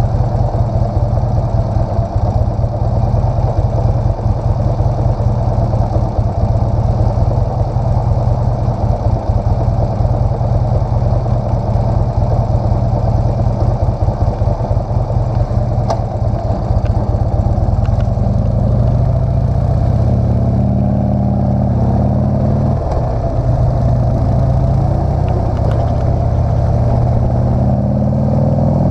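Motorcycle engine idling steadily, then revving up as the bike pulls away about two-thirds of the way in; the pitch rises, drops at a gear change, and rises again near the end.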